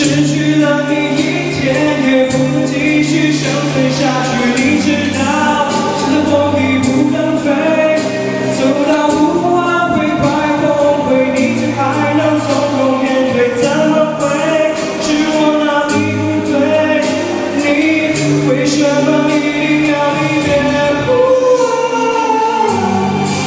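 A man singing a Chinese pop ballad into a handheld microphone over a backing track with held bass notes and regular drum hits.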